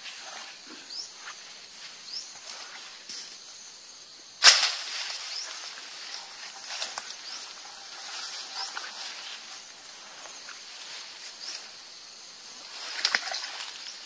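Footsteps and rustling through grass and leafy undergrowth as a plastic bucket is carried, with a single sharp knock about four and a half seconds in. A short, high, rising chirp repeats about once a second through the first few seconds.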